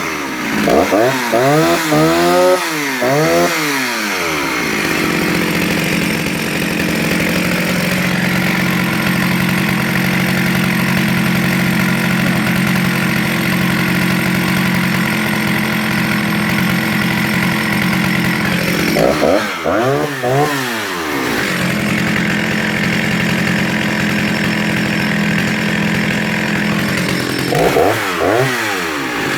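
Jonsered 49SP two-stroke chainsaw revving, then held at a steady pitch under load as it cuts through a log. About 19 seconds in it revs up and down between cuts, then settles into a second steady cut, with more revving near the end.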